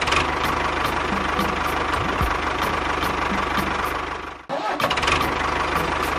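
An engine running steadily with an even knocking beat. It cuts out suddenly about four and a half seconds in and comes straight back with a brief surge.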